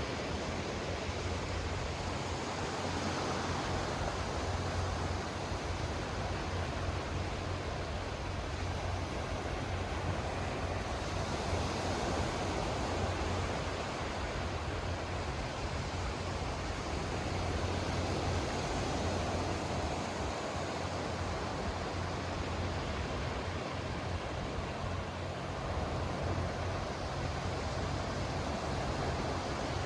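Sea waves washing in, a steady rushing that swells and eases every five or six seconds, over a constant low hum.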